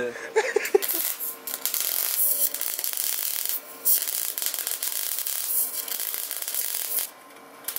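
Wire-feed welder arc crackling steadily as a weld bead is laid, with a brief break about three and a half seconds in, stopping about a second before the end.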